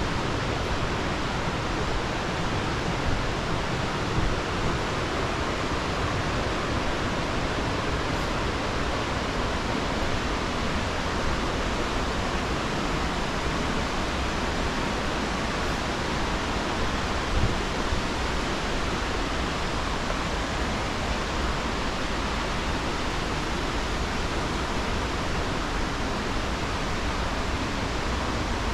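The 25 m-high Jōren Falls waterfall, its water crashing down with a steady, unbroken rush.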